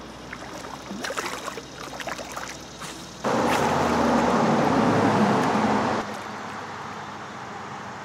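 Flowing river water, a steady rush that comes in loudly about three seconds in and drops back a little after six seconds, with faint small clicks and splashes before it.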